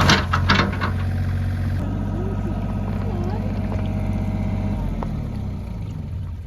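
A digger's engine running steadily, fading near the end. A voice is heard briefly at the start.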